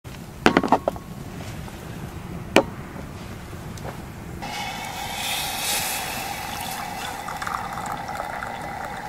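A few sharp knocks of a glass and bottle being set down on a plastic stool top. Then, from about four seconds in, a steady hiss with a low hum, through which hot water is poured from an enamel kettle into a glass.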